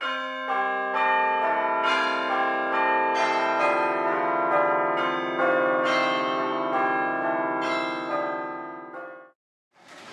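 Church bells ringing, a run of overlapping struck tones about two a second that fade and then cut off about nine seconds in. Faint room noise follows near the end.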